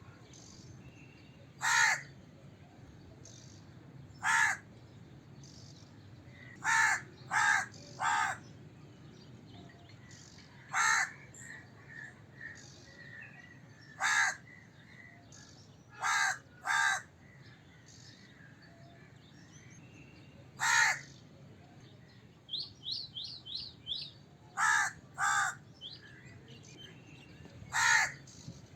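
A crow cawing: single caws every few seconds, sometimes two in quick succession, about thirteen in all. A brief run of quick high chirps from another bird comes about two-thirds of the way through.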